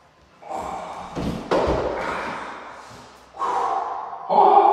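Dull thuds about a second and a half in, followed near the end by a drawn-out, held voice-like tone.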